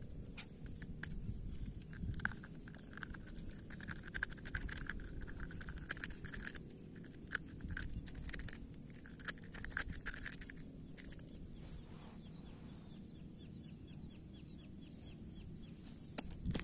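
Fishing reel being cranked to bring in a hooked grouper: a whirring with many quick clicks that stops about ten seconds in, then faint rapid ticking, over a steady low rumble.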